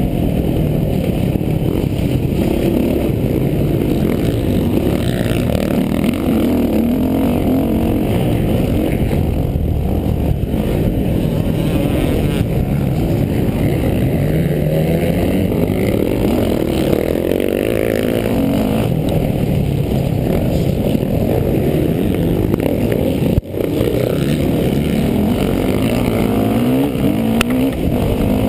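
Motocross bike engine revving hard and easing off again and again at race pace, heard close up from the rider's helmet camera, with one brief dropout near the end.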